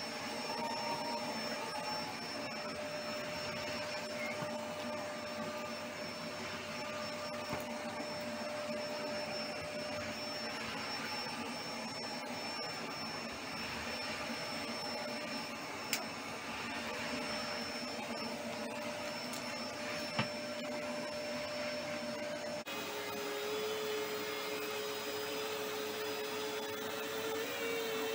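Vacuum cleaner running steadily on an old carpet rug and sofa, with a steady whine that drops a little in pitch about two thirds of the way through. Two brief knocks are heard in the second half.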